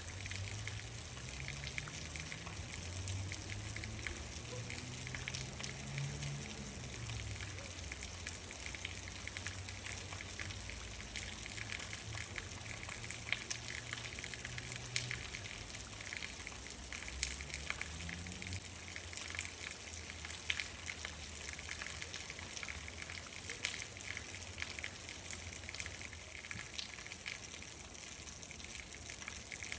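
Steady rain falling, with many separate drop ticks on top of an even hiss. Underneath, a low hum rises in pitch over the first several seconds and again around eighteen seconds in.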